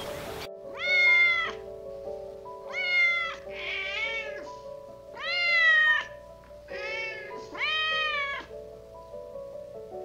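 A tabby cat meowing about six times in a row, each meow a drawn-out call of half a second to a second, with one rougher meow a few seconds in; the last ends a couple of seconds before the close. Background music with steady held notes plays underneath.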